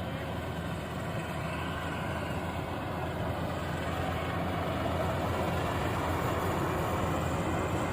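Combine harvester running steadily while harvesting rice: a low, even engine hum under the dense noise of the machine at work.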